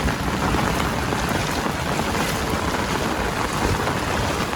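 Steady rushing of floodwater running down a road, with rain falling and wind buffeting the microphone.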